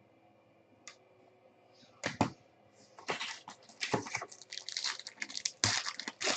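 Trading-card packaging and cards handled by hand: a single small click, then from about two seconds in a run of crinkling and sharp clicking as a wrapper is torn and the cards are shuffled through.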